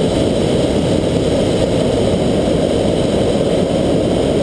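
Hot air balloon's propane burner firing overhead: a loud, steady rushing noise with no break.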